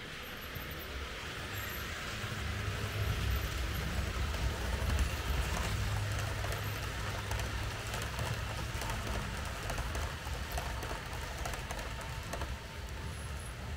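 Märklin H0 model train running past, its motor humming and its wheels clattering on the track, growing louder over the first few seconds.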